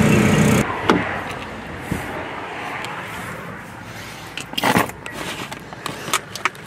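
A steady mechanical hum that cuts off about half a second in, then handling of gear: light clicks, knocks and rustling as items are moved about, with one louder crinkling rustle a little past the middle, like a plastic bag being handled.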